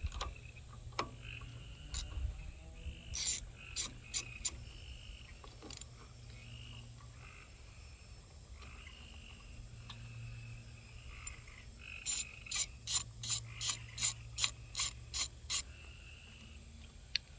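Ratchet wrench clicking while a bolt is backed out: a few clicks about three seconds in, then a longer run of about four clicks a second starting about twelve seconds in.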